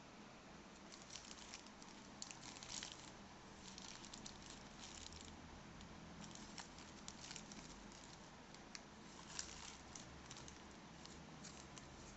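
Plastic courier bag crinkling and crackling as fingers pull and tear it open: faint, irregular crackles.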